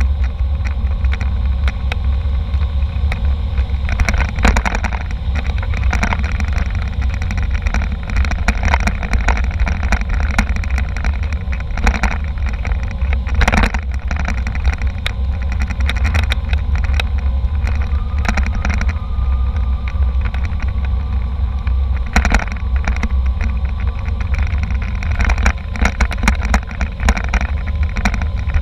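Airliner cabin noise: a steady deep rumble from the engines and airflow, broken by frequent sharp rattles and knocks.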